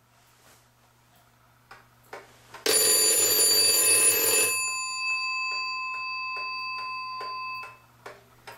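Vintage clock's alarm going off: the hammer rattles rapidly against the bell for about two seconds, then the bell rings on more quietly and cuts off suddenly, over the faint steady ticking of the clock movement. The alarm is being tripped by hand while its trip wire is adjusted.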